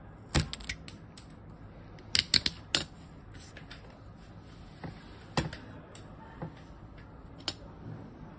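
Utility knife cutting a small piece of light model-aircraft material on a cutting mat, giving sharp, separate clicks and snaps. There is a strong one near the start, a quick run of four about two seconds in, and single clicks later on.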